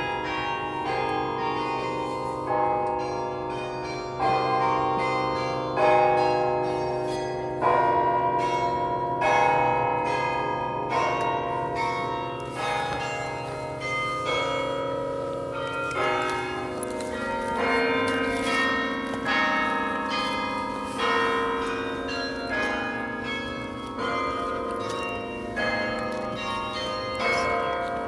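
Carillon in a bell tower playing a melody: bronze bells struck in quick succession, several notes a second, each ringing on and overlapping the next over a steady low hum of sounding bells.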